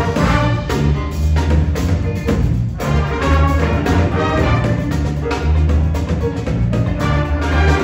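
Jazz big band playing a funky tune: saxophones and brass over piano, vibraphone and drum kit, driven by a strong, steady bass line.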